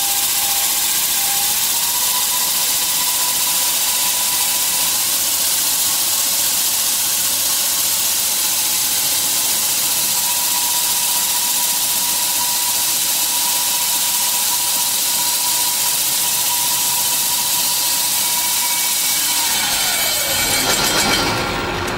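NS ML-100 tube sanding and polishing machine running, its abrasive belts grinding on a 55 mm tube fed through the planetary head: a steady high hiss with a faint steady whine. Near the end the whine falls in pitch and the sound changes.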